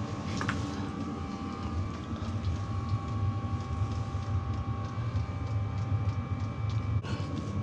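Steady low rumble with a thin, constant high whine over it: a small motor running.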